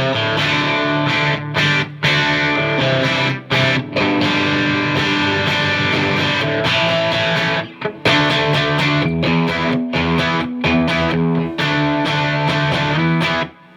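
Electric guitar playing chords with light crunch overdrive, on a Stratocaster-style partscaster's bridge humbucker coil-tapped to single-coil, through a Marshall JVM210 combo amp's clean channel in red mode. The chords ring out with a few brief stops and cut off near the end.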